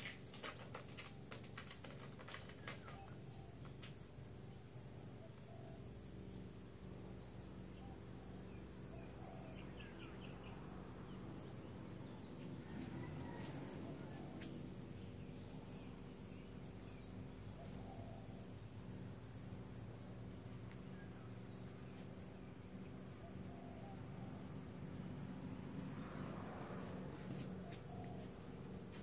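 Steady insect chorus, a high pulsing trill that never lets up. In the first few seconds, a run of sharp scratching clicks as a cat claws at a wooden door.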